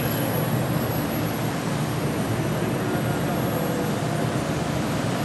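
Small electric motor and propeller of a Fancy Foam Mini Elipse indoor foam RC airplane running steadily in flight, a faint wavering hum over an even hiss.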